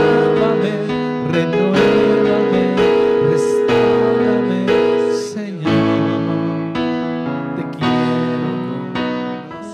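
Electronic keyboard playing slow, held piano-voiced chords that change about once a second, a soft worship accompaniment.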